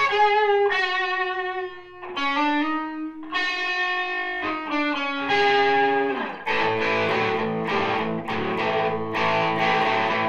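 Electric guitar, an ESP LTD EC-1000, played through an overdriven amp. It starts with a lead line of held, bent notes with vibrato, and about six seconds in it changes to a heavy, distorted, rhythmic chugging riff.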